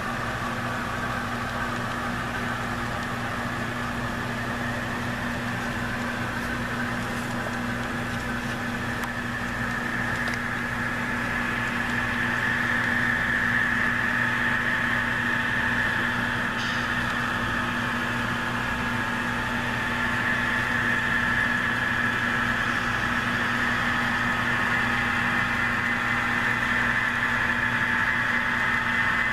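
Model trains running on a DC-powered layout: a steady electric-motor whine over a low hum, growing louder about twelve seconds in as a train comes closer.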